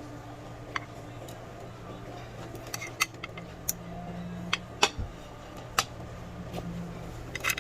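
Tableware clinking at a hot pot table: utensils knocking against bowls, plates and pots, about a dozen sharp, separate clinks at irregular intervals over a steady low hum.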